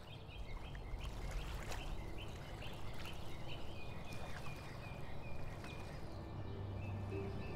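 Birds chirping in short repeated calls over a low, steady rumble of water and wind.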